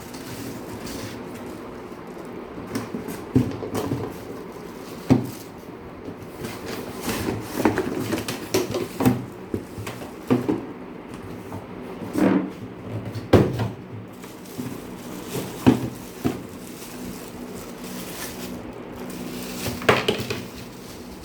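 Unboxing handling noises: irregular knocks, taps and short rustles of a box and its packaging being handled, over a faint steady low hum.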